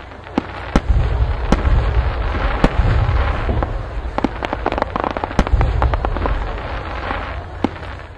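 Fireworks: a dense crackle and hiss with a deep rumble underneath and sharp bangs every half second or so, dying away near the end.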